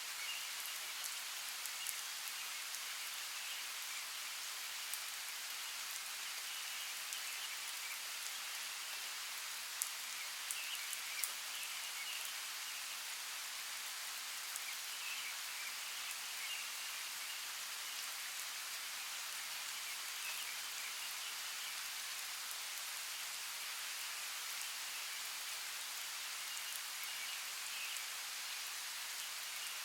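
Steady rainfall in a rainforest: a dense, even hiss of drops, with a few sharper, louder drips about ten to eleven seconds in.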